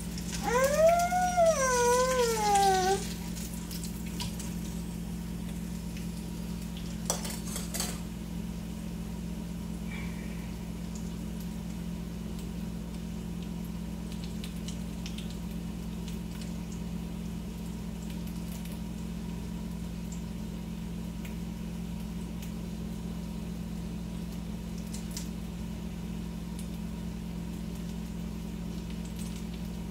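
Taquitos frying quietly in a skillet over a gas burner, under a steady low hum. Near the start there is a drawn-out, wavering voice-like call that rises and falls twice, and about seven seconds in a brief clatter of metal tongs.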